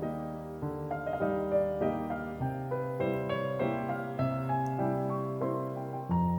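Background piano music, a flowing melody of quick notes over held bass notes, with the bass changing a little after two seconds in and again near the end.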